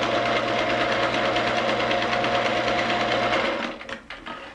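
Electric sewing machine stitching a seam at a steady speed, stopping about three and a half seconds in, followed by a few light clicks.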